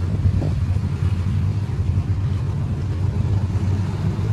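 A motor vehicle engine running at a steady, low rumble.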